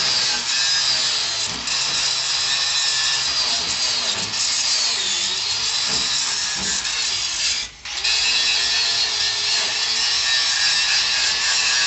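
Corded electric angle grinder running under load against the metal pump-house lid. Its whine dips in pitch about five seconds in, and it cuts out briefly just before eight seconds, then starts again.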